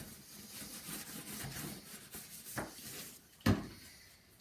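Paper towel wiping and rubbing over a computer case, with a short knock about two and a half seconds in and a louder knock about a second later.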